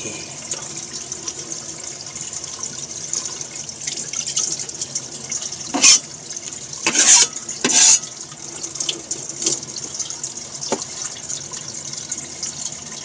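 Kitchen tap running into a sink, with louder surges of water about six, seven and eight seconds in, and a few light clicks later on.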